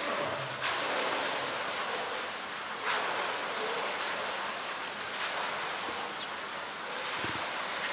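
Water sloshing and splashing as a polar bear swims and surfaces in her pool, over a steady high buzz of summer cicadas.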